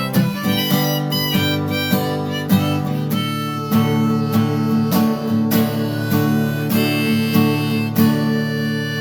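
Acoustic guitar strummed in a steady rhythm, about two strokes a second, with a harmonica in the key of G played over it in an instrumental passage.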